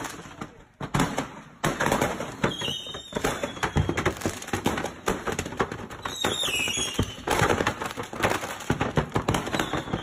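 A stash of fireworks going off uncontrolled in a house fire: a rapid, continuous string of crackling pops and bangs, with a short falling whistle about two and a half seconds in and another about six seconds in.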